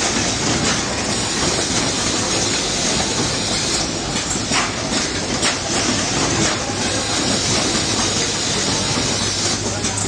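Automatic wire harness processing line running: a steady mechanical clatter with short, sharp pneumatic air hisses now and then.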